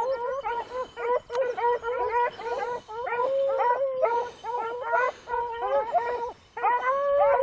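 A pack of beagles baying on a rabbit's scent: several hounds' voices overlap in a continuous chorus of short yelps, with a few longer drawn-out bays.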